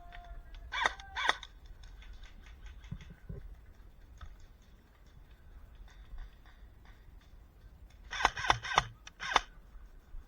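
A bird's harsh calls: two about a second in and a quick run of four or five near the end, with faint scattered ticks in between.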